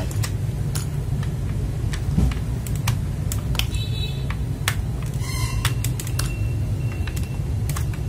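Irregular sharp clicks and clacks from a hot-swap mechanical keyboard as its keys and switches are handled and pulled, over a steady low hum.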